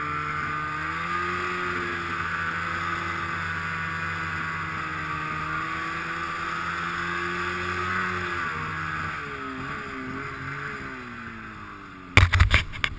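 Snowmobile's two-stroke engine, big-bored to 880 and being broken in, running at a steady pitch. After about nine seconds it eases off and drops in pitch as the sled slows. Near the end there is a burst of loud, irregular knocks and rumbles.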